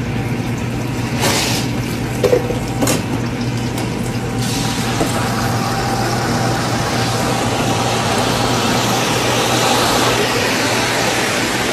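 Commercial deep fryer oil sizzling and bubbling over a steady low kitchen hum, the hiss growing louder after about four seconds. Two brief clatters come in the first three seconds.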